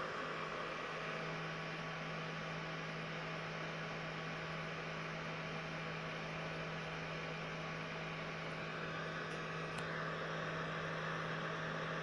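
SilverCrest mini dehumidifier running, drawing about 33 W: its small fan makes a steady whir over an even low electrical hum.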